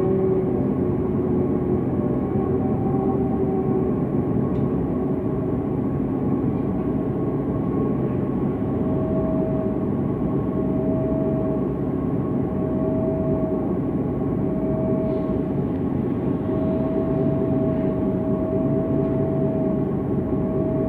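MAN NG 273 T4 articulated city bus's LPG engine idling steadily while the bus stands still. A higher hum swells and fades repeatedly in the second half.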